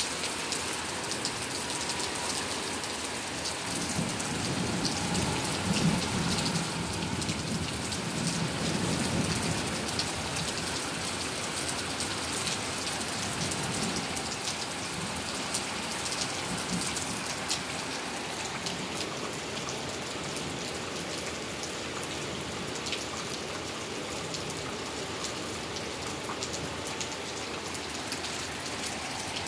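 Rain falling steadily during a thunderstorm, with a low rumble of thunder swelling from about four seconds in and dying away by about ten seconds.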